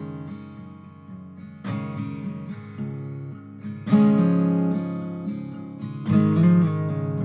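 Background music: acoustic guitar strumming chords, one strum about every two seconds, each left to ring.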